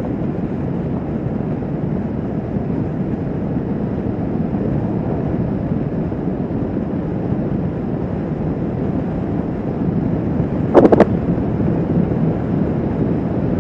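Kawasaki Vulcan S 650's parallel-twin engine running steadily at cruising speed, mixed with road and wind noise on the microphone. A brief, loud double knock comes about eleven seconds in.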